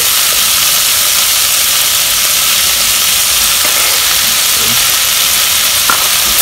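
Rice, chopped tomato and oil frying in a pot over a gas burner, giving a steady high sizzling hiss. A single light tap near the end.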